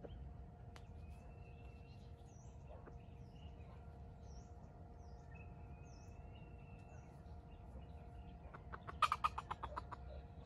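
Wild junglefowl and small birds, faint: thin whistled calls and short high chirps over a steady low hum. Near the end comes a quick run of about a dozen sharp pulses from the fowl, the loudest sound.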